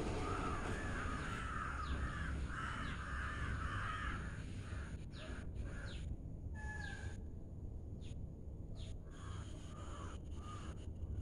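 Crows cawing: a run of harsh, raspy caws in the first four seconds, then a few fainter calls, over a low steady rumble.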